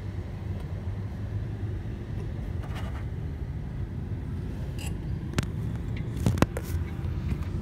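BMW M62 V8 engine running at a steady idle, heard close up as a low, even hum, with a few sharp metallic clicks over it about five and a half and six and a half seconds in.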